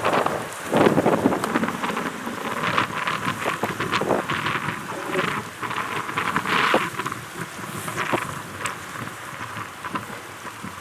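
Rain and gusting wind on the microphone: a noisy hiss that surges and eases irregularly.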